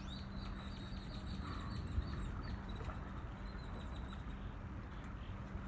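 Many small birds chirping in quick succession over a steady low hum and rumble.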